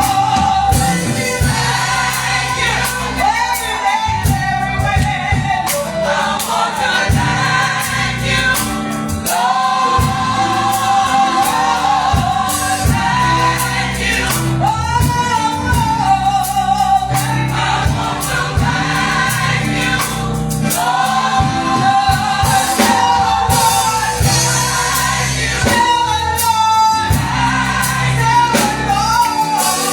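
Gospel choir singing with full instrumental backing, held sung notes rising and falling over a steady beat.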